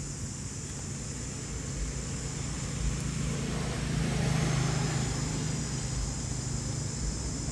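Engine drone of a passing motor vehicle, growing louder to a peak about four seconds in and then easing off, over a steady high hiss.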